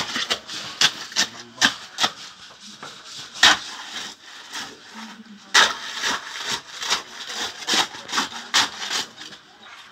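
A spade jabbed again and again into fresh concrete in a rebar-caged footing to consolidate it by hand, in place of a poker vibrator: short, sharp scraping strokes at an uneven pace, about one to two a second.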